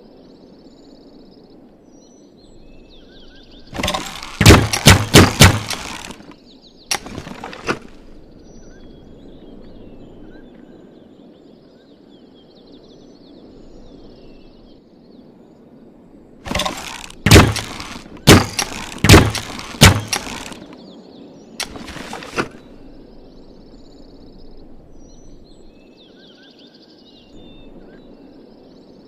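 Bamboo repeating crossbow clacking: a quick run of five or six sharp wooden clacks a few seconds in, another about a second later, then a second run of five or six clacks past the middle, followed by two more. Birds chirp faintly over steady outdoor background noise.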